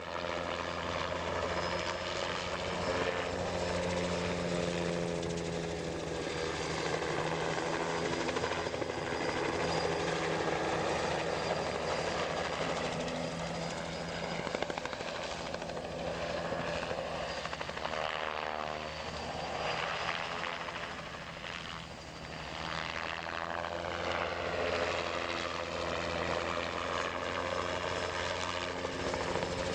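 Bell 206B3 JetRanger helicopter running steadily, its two-blade main rotor beating over the whine of its turbine engine. About two-thirds of the way through, the pitch bends and the sound dips briefly before coming back to full strength.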